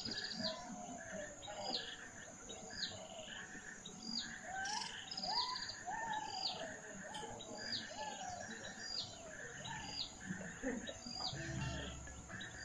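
Birdsong: a short, high call repeated steadily about every second, over other birds with lower gliding whistles. A low rumble joins in near the end.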